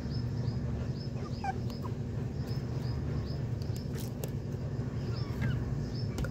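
Chickens calling softly: short high chirps, about two a second, and now and then a lower sliding note, over a steady low rumble. A couple of light clicks come about four seconds in.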